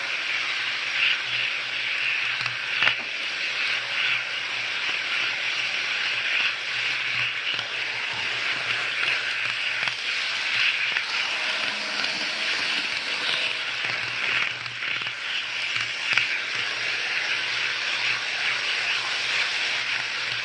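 N-scale model train running along the track, heard from on board: a steady rattling whir from its motor and wheels on the rails, with a low hum and a few brief clicks.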